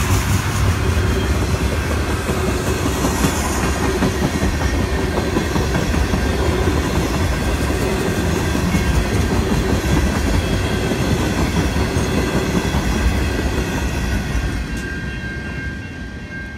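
Freight train of tank cars rolling past, the wheels rumbling steadily on the rails; the sound falls off near the end as the last cars go by.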